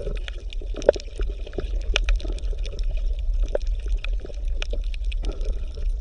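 Water bubbling and gurgling, with many irregular small pops over a steady low rumble.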